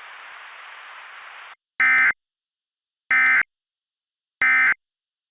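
Steady static hiss that cuts off, then three short identical data bursts of warbling tones, about a second and a half apart: the Emergency Alert System end-of-message (EOM) code closing a winter storm warning broadcast.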